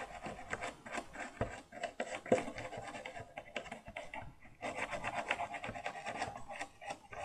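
A circuit board being scrubbed clean with PCB cleaner: irregular scratchy rubbing strokes, with one sharper scrape about two seconds in and a denser run of strokes in the second half.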